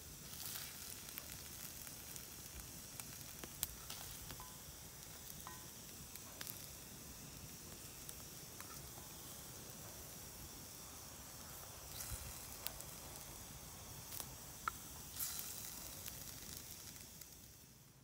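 Campfire burning: a steady faint hiss with a few sharp crackles scattered through.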